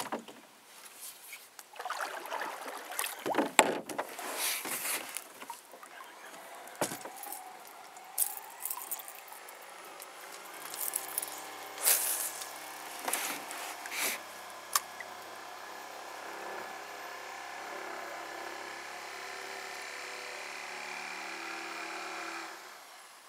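Knocks and clatter of gear against a small boat's hull, followed by a steady motor hum that rises in pitch about seven seconds in, holds level, and cuts off suddenly near the end.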